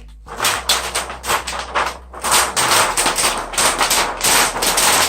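Gray adhesive tape being peeled off a TV's plastic diffuser film, crackling in rapid bursts several times a second with a short break about two seconds in.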